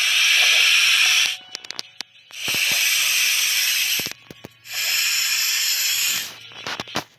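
Three bursts of hissing, each about a second and a half long, with small clicks in the gaps between them.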